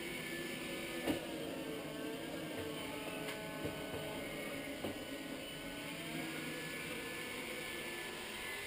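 iRobot Scooba 230 robotic floor mop running: a steady motor whir with several faint tones that waver slightly. A few short sharp clicks sound over it, the loudest about a second in.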